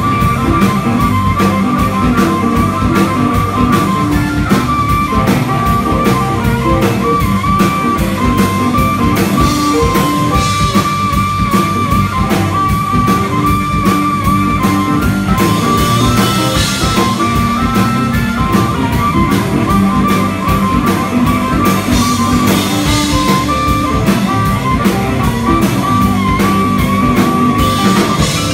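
Live blues-rock band: a harmonica cupped to a handheld microphone plays a lead line of long, held notes over electric guitar, bass, and a Sakae drum kit with Zildjian cymbals keeping a steady beat.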